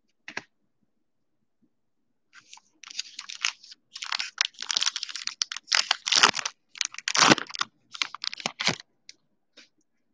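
Trading-card pack wrapper being torn open and crinkled by hand: a fast, uneven run of crinkles and rips that starts about two seconds in and stops shortly before the end.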